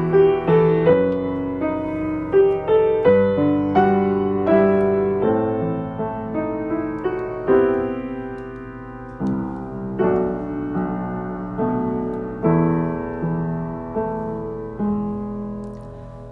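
Solo piano playing a slow, gentle piece of single notes and chords, each note struck and left to ring; the playing slows and spaces out in the second half.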